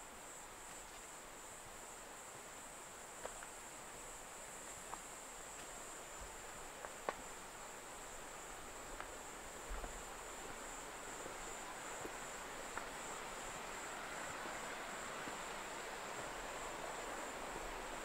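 A steady high trill of insects, slightly pulsing, over the even rush of a mountain stream that grows a little louder in the last few seconds. A few scattered light clicks come through.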